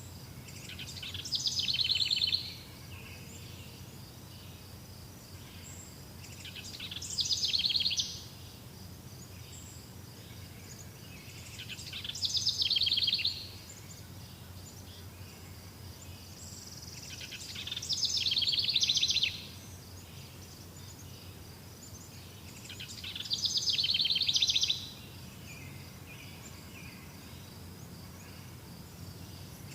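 A songbird repeating the same song phrase five times, about every five seconds. Each phrase is a rapid trill that grows louder over a second or two and then stops abruptly.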